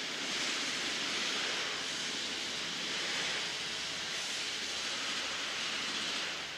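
Steady rushing hiss with no distinct tones or knocks, starting to fade out near the end.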